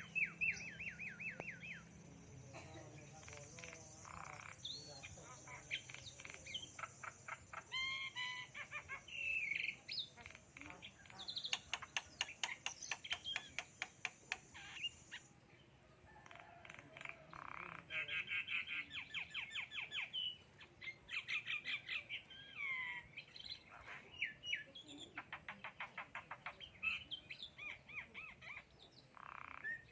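Javan myna (jalak kebo) calling: bursts of fast chattering trills, rattles of clicks and short whistled notes, repeated on and off.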